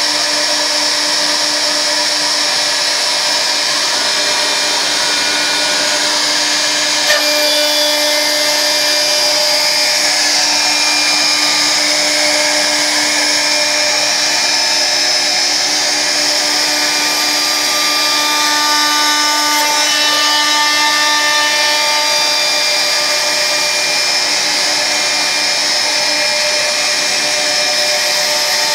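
CNC router spindle running at speed while its bit carves into a wood board: a steady high whine with several held tones over the cutting noise. A brief click comes about seven seconds in.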